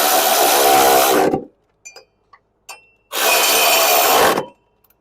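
Power tool run twice, a run of nearly two seconds and then a shorter one about three seconds in, driving in and tightening the 13 mm upper mounting bolts of a new rear shock absorber, with a few small clicks between the runs.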